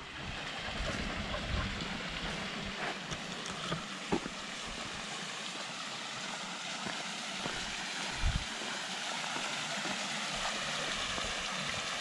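Steady rushing of a small waterfall pouring into a freshwater pool, with a few soft low thumps along the way.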